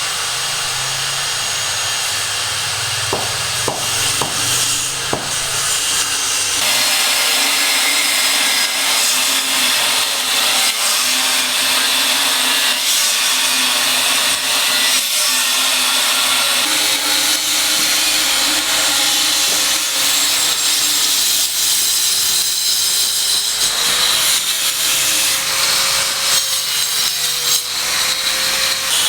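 A power tool cutting, its motor tone sagging and recovering under load, with a sudden change in the sound about six and a half seconds in.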